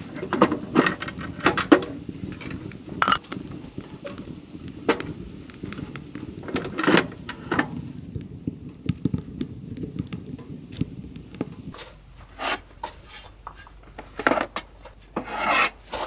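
Dry twigs, pine cones and wood shavings being handled and scraped as kindling, a rubbing, rasping sound with many sharp cracks and clicks that thins out to scattered clicks after about twelve seconds.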